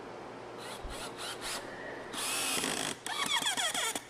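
Cordless drill driving a screw through a cedar log leg into the tenon: a few short trigger blips, then two longer runs, the motor pitch dipping and rising as the screw bites into the wood.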